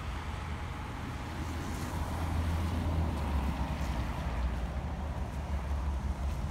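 Wind buffeting the microphone: an unsteady low rumble that grows stronger about two seconds in.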